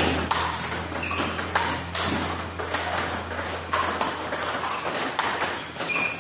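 Table tennis balls clicking off bats and bouncing on the table in quick, uneven succession during a multi-ball forehand topspin drill, over a low steady hum.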